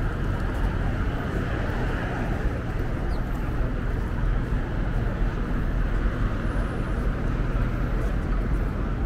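Steady city traffic noise: a continuous rumble of vehicles on a street, with no single event standing out.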